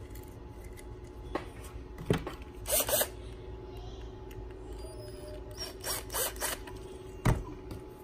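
Screwdriver tightening the small terminal screws of a metal toggle switch: two short bursts of scratchy metal-on-metal turning, with a few sharp clicks and taps of the tool against the switch, over a steady low hum.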